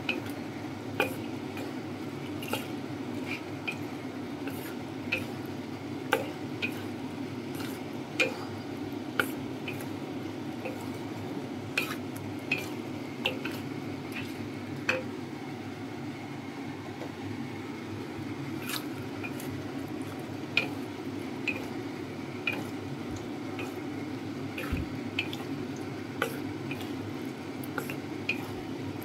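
Wooden spatula stirring pork ribs and vegetables in thick sauce in a wok, giving irregular clicks and knocks against the pan and wet squishing, over a steady low hum.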